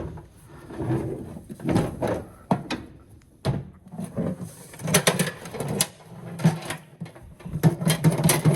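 A small metal safe being handled and shaken, with irregular knocks, clunks and rattles from something loose inside, which may be just the safe's shelf rattling around.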